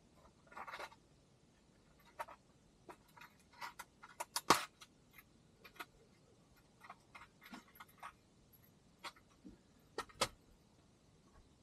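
Scattered light clicks and clinks of paramotor frame parts and screws being handled, with a brief scratchy rustle near the start. A sharper knock comes about four and a half seconds in and another about ten seconds in.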